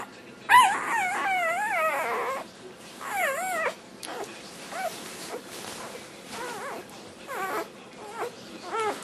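Australian Shepherd puppy 'singing': a long, wavering, warbling whine-howl about half a second in, another shorter one around three seconds, then a string of short, quieter whimpers. This is the vocalising the puppy does while eating.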